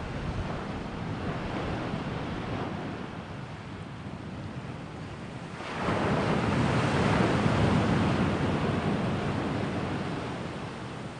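Sea waves washing in, with a larger wave surging in about six seconds in and then slowly washing back out.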